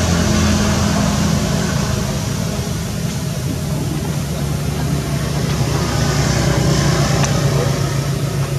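A motor engine running steadily with a low hum, like an idling vehicle.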